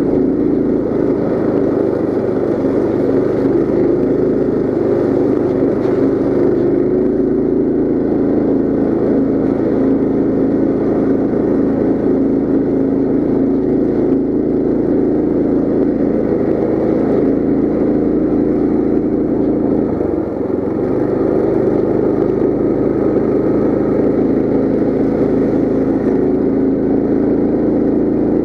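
Coleman CT200U mini bike's small single-cylinder four-stroke engine running steadily under way through its CVT, with a brief drop in engine note about two-thirds of the way through before it picks up again.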